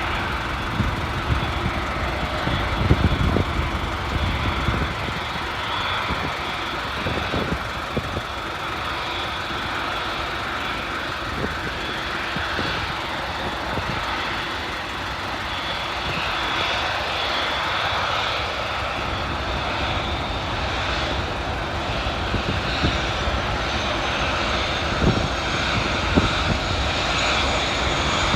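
Airbus A380's four turbofan jet engines running at low taxi power: a steady rush of engine noise with a high whine through it, and a second, thinner whine that rises slightly about two-thirds of the way through.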